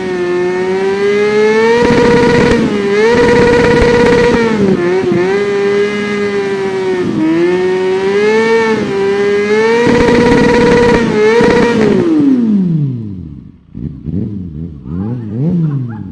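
Kawasaki Ninja 400 parallel-twin engine revving hard, held high with quick dips and blips. About twelve seconds in the revs fall away steeply, followed by several shorter, quieter rises and falls.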